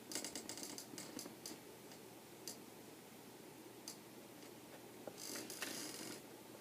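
Faint handling of a paper picture book: short paper rustles as a page is turned, with a scatter of small clicks and ticks.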